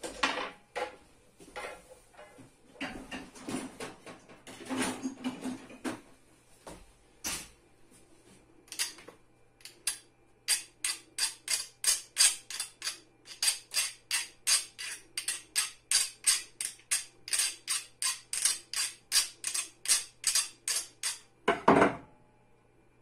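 Hand file rasping over a small metal part in even strokes, about two to three a second for around ten seconds, after a few seconds of scattered clicks and knocks of parts being handled. A heavier knock near the end as something is set down.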